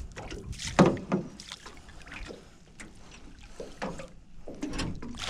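Water splashing and a few sharp knocks as a landing net is worked in the water beside a small boat to scoop up a large flathead. The loudest splash or knock comes just under a second in.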